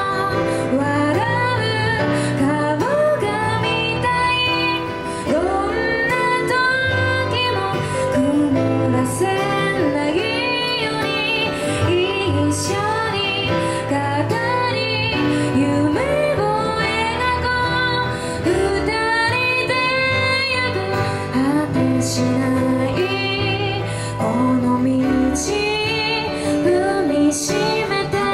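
A woman singing a song live with instrumental accompaniment, holding long notes that waver in pitch.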